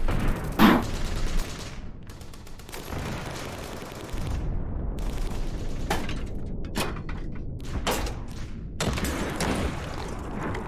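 Scattered rifle gunfire in a firefight: a loud shot about a second in, then a run of separate, fainter shots in the second half, over a low rumble.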